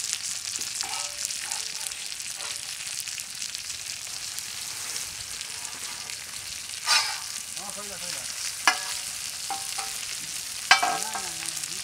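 Oil sizzling steadily under whole red pomfret frying on a flat tawa, with a metal spatula scraping and knocking sharply against the pan three times as the fish, done on one side, are turned.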